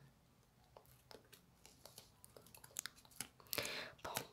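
Slime squeezed and pressed between fingers, giving faint sticky clicks and pops that come more often as it goes on, with a louder, longer squish about three and a half seconds in.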